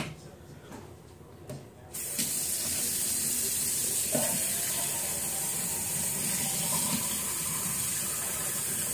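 Water running from a tap, turned on suddenly about two seconds in and then running steadily.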